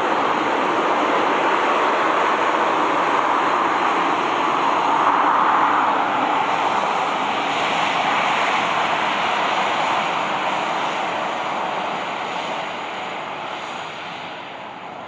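Boeing 737-800's CFM56-7B jet engines running at low power as the airliner rolls past and turns away. A steady rushing jet noise that fades over the last few seconds.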